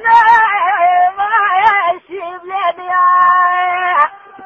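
A solo voice singing a slow, ornamented melody without accompaniment: wavering, melismatic notes, then a long steady held note that breaks off about four seconds in.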